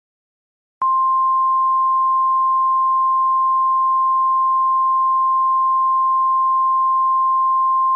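Emergency Alert System attention signal: a single steady 1050 Hz alert tone of the NOAA Weather Radio kind, sounding the alarm before an emergency message is read. It starts sharply about a second in and holds at one pitch and level for about seven seconds.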